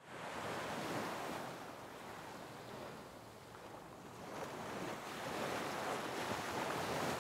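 Sea surf: waves rushing in and washing back, swelling about a second in and again, for longer, in the second half.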